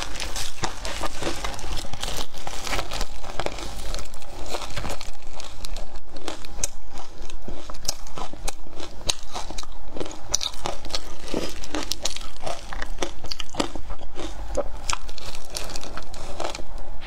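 Crushed ice coated in matcha powder being bitten and chewed, close to a clip-on microphone: a dense, unbroken run of sharp crunches.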